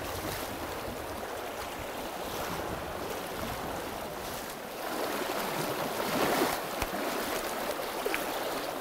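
Flowing water of a shallow, rocky river: a steady wash that grows a little louder about five seconds in.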